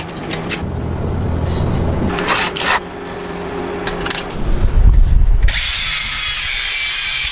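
Power tool working wood: a motor hum with scraping and clicks, then a loud steady hiss from about five and a half seconds in.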